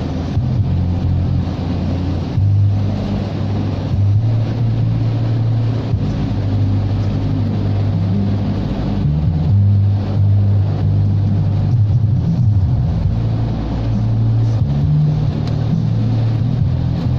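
Car engine and road noise heard inside the cabin while driving: a low hum that shifts in pitch now and then, over a steady hiss.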